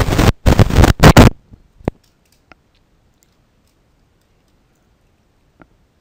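Loud distorted crackle on a poor computer microphone for about the first second, then near-quiet with a few single keyboard keystrokes, about two seconds in and again near the end.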